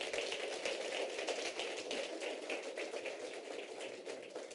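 Audience applauding: a dense patter of many hands clapping that gradually fades toward the end.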